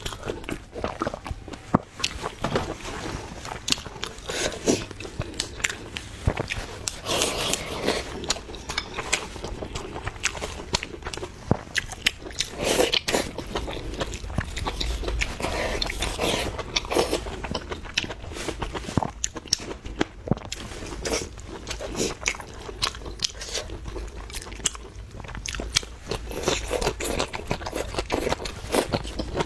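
Close-miked chewing and crunching of food, with many quick wet clicks and crackles of bites and mouth sounds.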